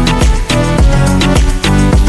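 Background music with a steady, fast drum beat and electronic bass.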